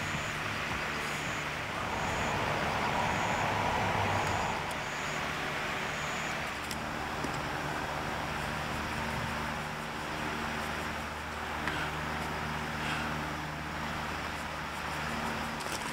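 A steady low mechanical hum under a broad rushing noise, with a faint high chirp repeating about once a second during the first several seconds.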